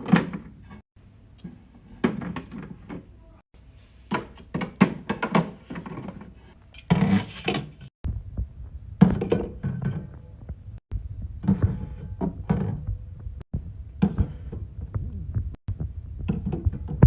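Drinks and snacks being stocked into a mini fridge: a string of knocks and taps as items are set on the shelves, some ringing briefly, with a rustle of packaging about seven seconds in. The sound breaks off abruptly every couple of seconds, and a low hum runs under the second half.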